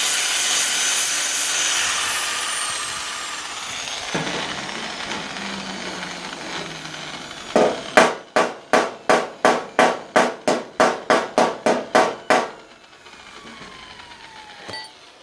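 Angle grinder with a sanding disc working on the car's welded metal, its pitch falling slowly as it spins down. It is followed by a quick series of about fourteen short, sharp strokes, about three a second.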